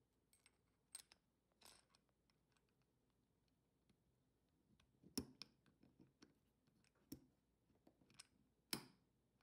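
Faint, sparse metal clicks and scrapes of a wire lock being swirled into the wrist-pin groove of a forged Mahle piston, with two slightly louder clicks about five seconds in and near the end.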